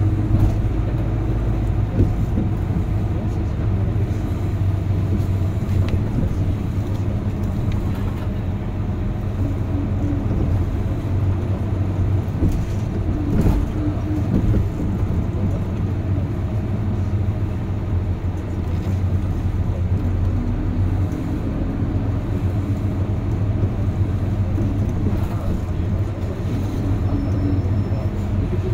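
Route bus heard from inside the cabin: the engine runs with a steady low drone under road noise. There is a brief light thump about halfway through.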